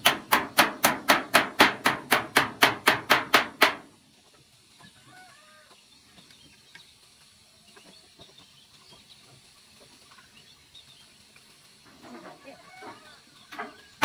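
Hammer striking nails into a corrugated metal roof sheet on a wooden frame, a fast even run of ringing blows at about four to five a second that stops just under four seconds in. After a quiet stretch, chickens cluck faintly, and a few more hammer blows come near the end.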